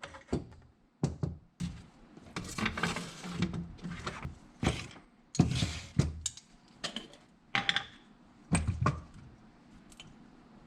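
Irregular knocks and thunks mixed with short bursts of scraping and rustling: hand tools and a soccer shoe being handled on a workbench during lining repair.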